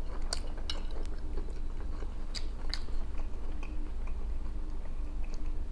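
A man chewing a mouthful of rice, beef and vegetables, with scattered short wet mouth clicks and smacks. A low steady hum runs underneath.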